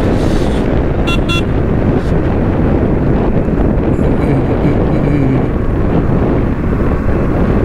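Wind buffeting the microphone over the steady noise of a motorcycle being ridden along. About a second in, a vehicle horn beeps twice briefly.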